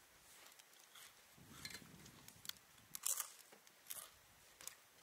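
Faint crunchy clicks and crackles of eating close to the microphone: chewing and handling food. They are scattered and irregular, with the loudest a little after three seconds in.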